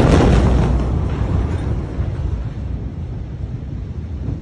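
Blast of a large ammonium nitrate explosion: a loud rush of noise at the start that dies away over about two seconds into a steady low rumble.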